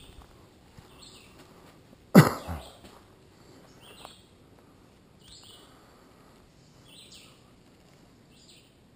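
A person coughs once, loudly, about two seconds in. Faint short high bird calls repeat every second or two behind it.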